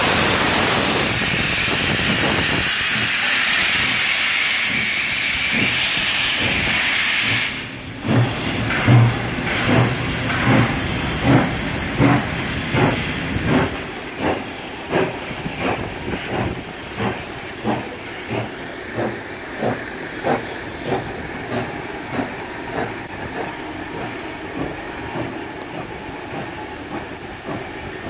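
NSWGR C36 class steam locomotive 3642 starting away: a loud steady hiss of steam from the open cylinder drain cocks cuts off suddenly about seven seconds in, and the exhaust chuffs begin, about one every three-quarters of a second at first, then gradually quickening and fading as the engine draws away.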